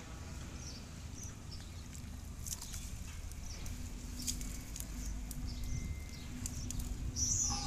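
Outdoor pond-side ambience: faint bird chirps and a few scattered light clicks over a low rumble, with a faint hum for a few seconds in the middle.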